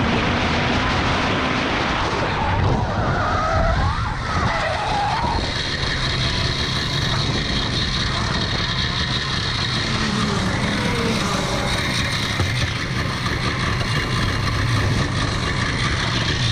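Hirth two-stroke kart engine running at high revs at speed, then tyres squealing and skidding about three seconds in as the kart spins out after its rear axle breaks at about 122 km/h. A steady hum continues after the kart has stopped.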